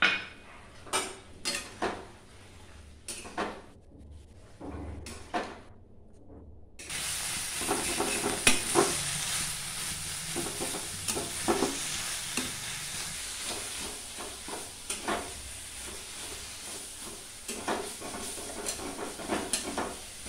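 Metal spatula stirring and scraping a thick taro and moong dal mash in a metal kadai over a gas flame, with a steady frying sizzle. A few separate knocks come first; the sizzle with its scraping strokes sets in about seven seconds in.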